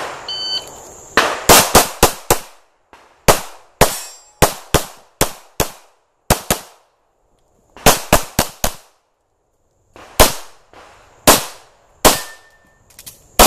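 Pistol shots fired in fast strings of two to six, with short pauses between the strings. A shot timer's single beep starts the run just under a second before the first shot.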